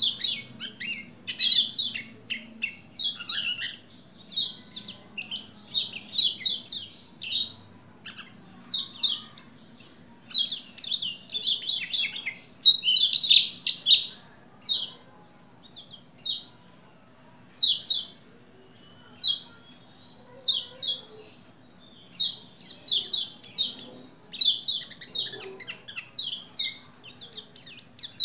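Pleci Lombok, a yellow white-eye, in full song: quick, high twittering chirp phrases, most under a second long, following one another with a few short pauses. A faint steady low hum runs underneath.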